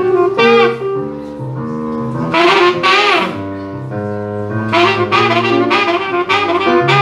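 Saxophone and electric keyboard duo playing live: the saxophone plays a melodic line of held and quicker notes, some brighter and louder about two and a half seconds in and near the end, over keyboard chords and a bass line.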